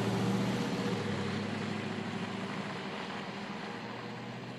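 A vehicle engine running steadily with a low hum, slowly growing fainter.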